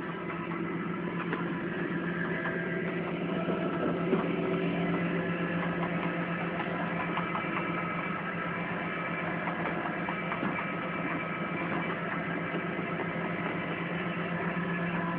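Tow truck's engine running steadily, a constant low hum with a few faint clicks over it.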